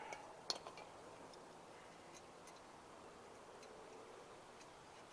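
Near silence with one sharp click about half a second in and a few faint, scattered light clicks after it.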